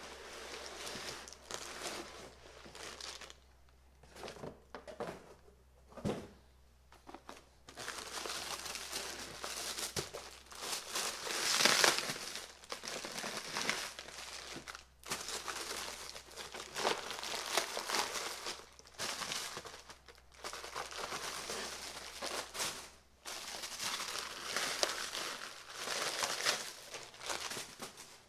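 Plastic packaging crinkling and rustling as a boxed car grille is unpacked: a clear plastic bag and a pink packing bag are handled, and a cardboard box lid is moved. The sound comes in irregular bursts, loudest about twelve seconds in.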